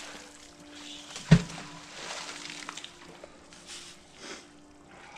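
A magnet on a rope striking the river: one sharp, heavy splash-thud about a second in, followed by fainter sloshing of water and rope.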